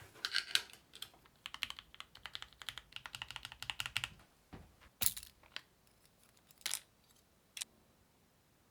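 Drop CSTM80 mechanical keyboard with linear Gateron Milky Yellow KS3 switches being typed on: a quick run of keystrokes for about four seconds, then three single, louder keystrokes about a second apart before the typing stops.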